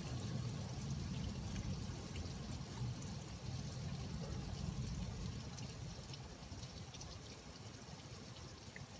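Rain falling with water trickling and pouring, scattered drops ticking. A low rumble fades away over the first six seconds.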